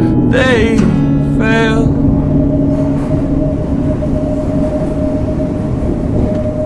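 London Underground train noise: a steady rumble with a constant thin whine. Over it the song's closing phrase sounds in the first two seconds, and its held notes die away about three seconds in.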